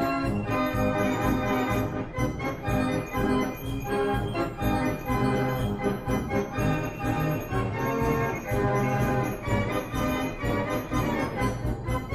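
Background music: a keyboard piece of held chords, the notes changing every second or so.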